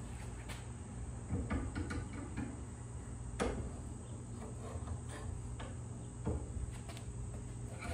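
Scattered metal clinks, knocks and scrapes as the hot Damascus blade is clamped in a steel bench vise and its warped tang levered straight with blacksmith tongs, the sharpest knock about three and a half seconds in. A steady low hum runs underneath.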